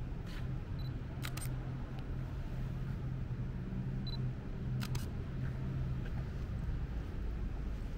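Night street ambience in a city: a steady low hum, with two sharp double clicks, one about a second in and another about five seconds in.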